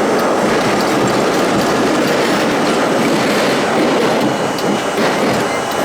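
Budd-built R32 subway car running in the tunnel: a steady rumble of wheels on track, with scattered clicks as the wheels pass over rail joints.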